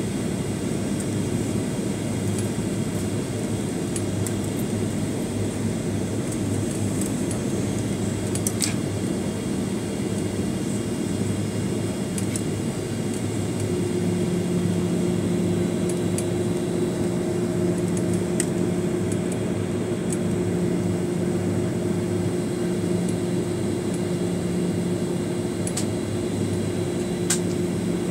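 Steady cabin roar inside a Boeing 737-900ER on approach to landing, from its CFM56-7B turbofan engines and the air rushing past the fuselage. About halfway through, a low steady hum joins in and holds.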